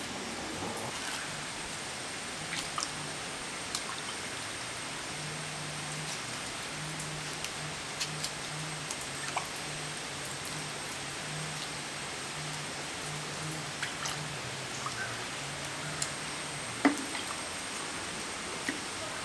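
Sardines being cleaned with a knife over a clay pot of water: scattered small drips, splashes and knife clicks over a steady hiss, with one sharper click near the end. A faint low hum comes and goes in the middle.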